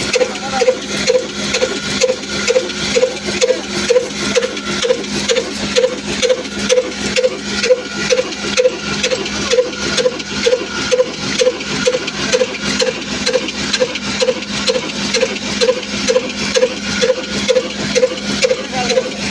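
Old Ruston Hornsby diesel oil engine running steadily under load, driving a flour mill, with slow, even exhaust beats of about two a second over a steady hum and clatter.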